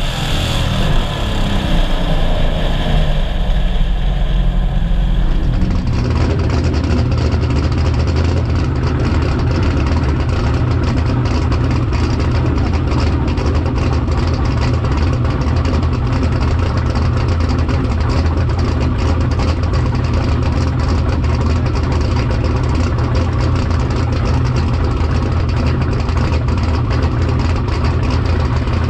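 Race car's V8 engine coming off the throttle and winding down at speed, with wind rush, then after about six seconds a steady idle with an even pulsing beat.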